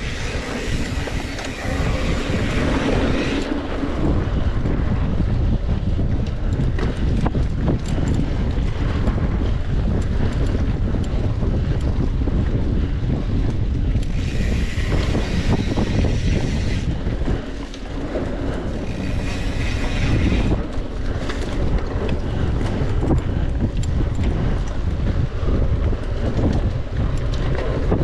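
Wind buffeting the microphone while a mountain bike is ridden over a rough trail, with a steady low rumble and constant rattling from the bike. The hiss is louder for a few seconds near the start and again about halfway through.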